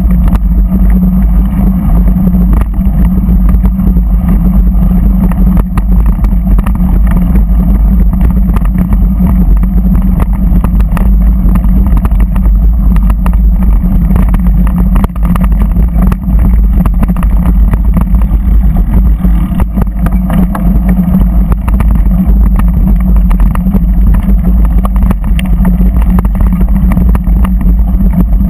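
Vehicle running at a steady pace over a rough, stony dirt track, heard from a camera mounted close to the ground: a constant engine or drive hum that holds one pitch, loud low rumble, and many small rattling jolts from the gravel.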